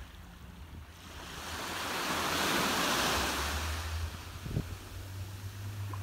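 A small wave breaking and washing up a sandy beach: a rush of surf that swells to a peak about halfway through and then eases back, over a low rumble of wind on the microphone.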